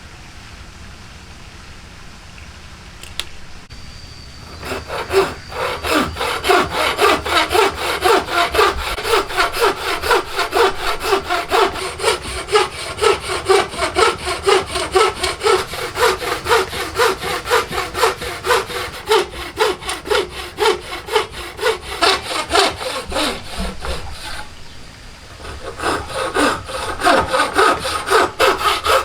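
Hand saw cutting through wood in quick, even back-and-forth strokes, about two to three a second. It starts about four seconds in, after a single click, pauses briefly near the end, then resumes.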